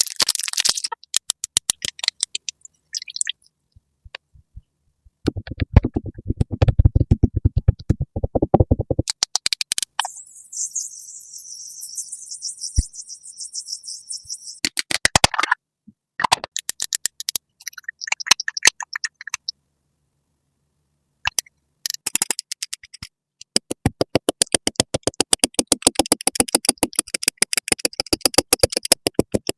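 Close-up ASMR makeup sound effects: runs of rapid clicking, tapping and scratchy brush-like strokes. A steady high hiss lasts about four seconds in the middle, and there is a short silent gap before a long run of dense rapid clicking near the end.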